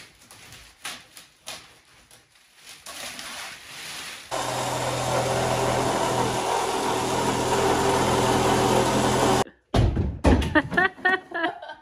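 Plastic film rustling and crinkling as it is peeled off window glass. Then a cordless drill/driver runs at a steady speed for about five seconds and cuts off abruptly. Brief voice sounds follow near the end.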